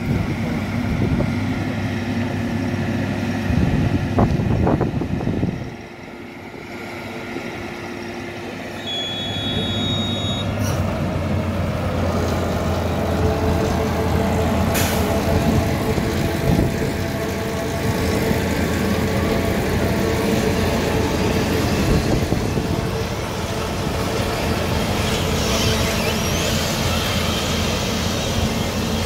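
Farm machinery running steadily: the diesel drone of a stationary forage baler-wrapper and its conveyor as chopped grass is tipped into its hopper from a silage trailer. The sound dips briefly about six seconds in, then comes back up.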